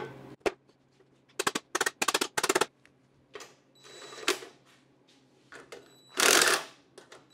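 Cordless DeWalt driver spinning bolts down into the frame-repair jig in several short, rattling bursts about a second and a half in. A louder, brief rasp of metal comes about six seconds in.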